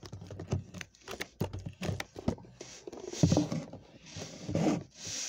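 Close handling noises as a makeshift gift package is packed and sealed with tape: a run of small taps and knocks, then bursts of rustling and tearing from about halfway through.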